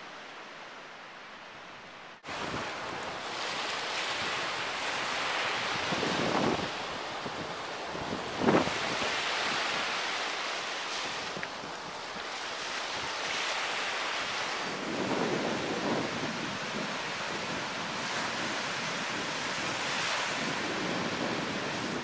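Ocean surf breaking and washing up on a sandy beach, a steady rush that swells and fades every few seconds, with wind buffeting the microphone. It starts softer and jumps louder about two seconds in, with one sudden louder moment about eight seconds in.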